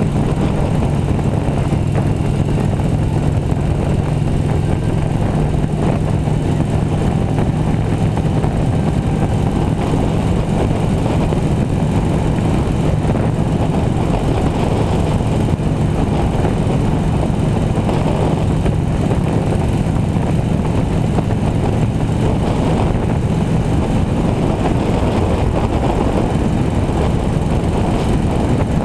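Motorcycle engine running steadily at cruising speed, a constant low hum, with wind and road noise rushing past the bike-mounted camera.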